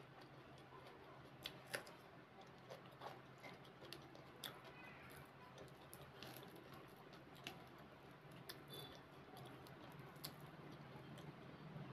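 Faint scattered clicks and crackles of fried bhatura bread being torn apart by hand.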